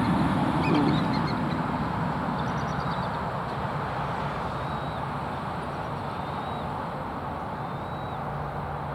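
A duck quacks a few times in the first second, over a steady outdoor background hiss. A few faint, short high chirps follow later on.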